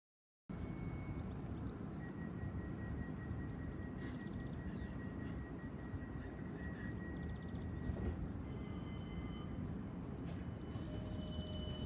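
CAF Urbos 100 tram standing at the platform, running a steady electrical hum with thin high whines from its equipment. A further set of high whines comes in about eight seconds in. The sound cuts in abruptly about half a second in.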